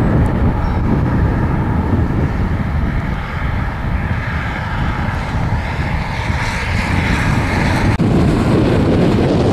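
Strong wind buffeting the microphone: a loud, steady rumbling rush that is heaviest at the low end, with traffic on the highway mixed in.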